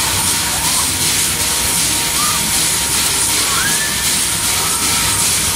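Spinning fairground arm ride in motion: a loud, steady hiss and rush with fairground music underneath, and a few brief high cries now and then.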